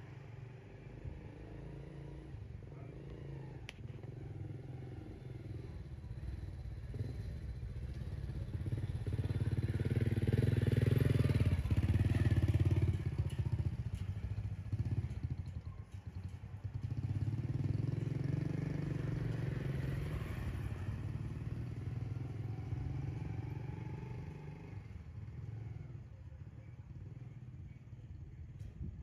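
A small motorcycle engine pulling a cargo trailer cart passes close by at low speed: it grows louder, swells twice with a short dip between, and fades away.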